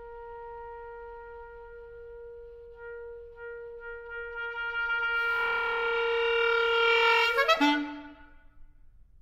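Solo clarinet holding one long note that starts soft and swells steadily louder and brighter. Near the end it slides quickly down to a lower note, which is held briefly and fades away.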